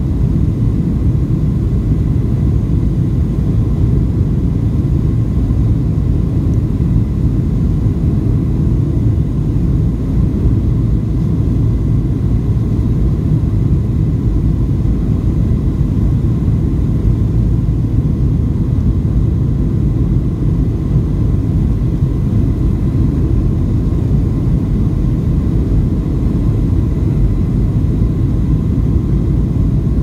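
Steady low rumble inside the cabin of a Boeing 737-800 on approach, heard from a window seat over the wing: its CFM56-7B engines and rushing air, with a faint steady high whine.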